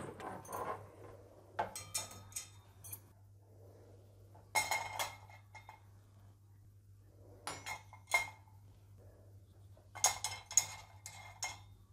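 Metal kitchen utensils and their hooks being hung on a wall-mounted stainless steel bar rack, clinking and rattling against the bars in about five short bursts of clatter a few seconds apart, with a bright ring.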